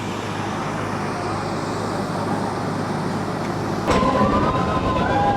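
A moving train's coach with its steady running rumble and low hum. About four seconds in, the level jumps and several high, wavering tones glide over one another.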